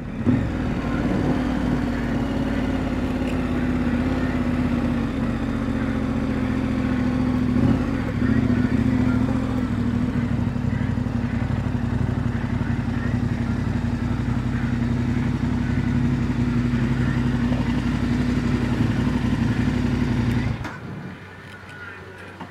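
KTM 1290 Adventure's V-twin engine running at a steady cruise, with road and wind noise, a short shift in the engine note about eight seconds in. The sound drops away sharply near the end, leaving a much quieter background.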